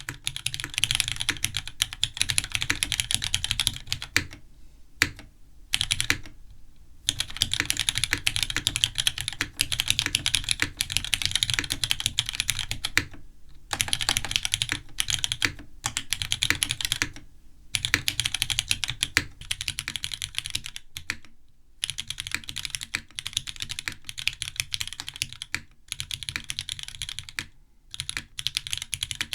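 Typing on a Neo80 Cu mechanical keyboard with Cherry MX2A Black linear switches and GMK Black Snail keycaps: a fast, continuous run of keystrokes broken by a few brief pauses.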